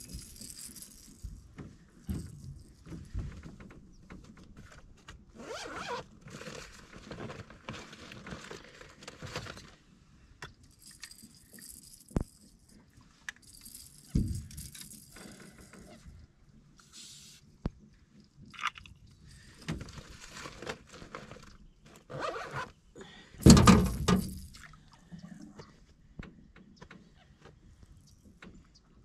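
Fishing-rod and reel handling on an aluminum boat deck: scattered scrapes, clicks and knocks, and stretches of hiss as a lure is cast and reeled. About two-thirds of the way through comes one loud burst of noise, the loudest sound here.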